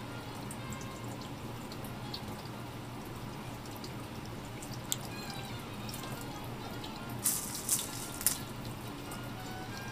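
Water dripping and splashing at a sink, with three short, louder splashes about seven to eight seconds in. Quiet background music underneath.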